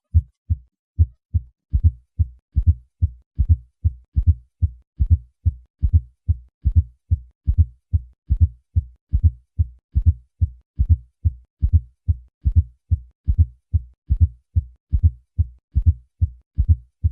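Heartbeat with a fourth heart sound: a soft low thud just before each first heart sound, so the beats fall in repeating groups of three, a triple (gallop) rhythm. The fourth heart sound is the sign of a stiff, non-compliant left ventricle, most often from hypertension.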